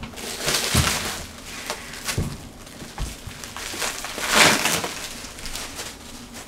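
Bubble wrap and plastic wrapping crinkling and rustling as they are pulled and handled, louder about half a second in and again about four seconds in, with a few soft knocks.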